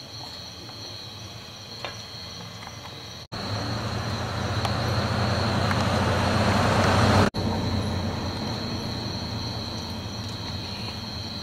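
Insects buzzing steadily at a high pitch. For a few seconds in the middle, a motor vehicle's engine and road noise rise over it and then cut off abruptly.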